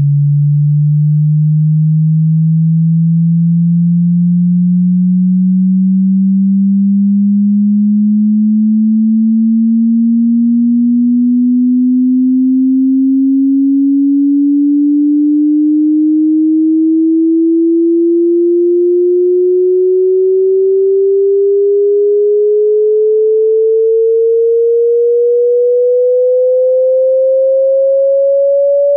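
Hearing-test sine tone: a single pure tone gliding slowly and steadily upward in pitch, from a low hum to a mid-range tone, at constant loudness.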